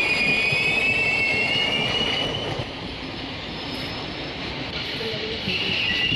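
Moving train with its steel wheels squealing against the rails over the rumble of the cars: a high, thin squeal that fades about two and a half seconds in and returns near the end.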